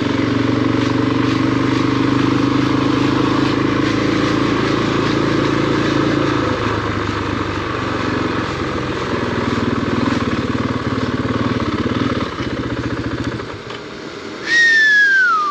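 KTM 500 single-cylinder dual-sport motorcycle engine running at low speed as the bike rolls along, its sound fading and stopping about thirteen seconds in. Near the end, a loud high call falls in pitch over about a second.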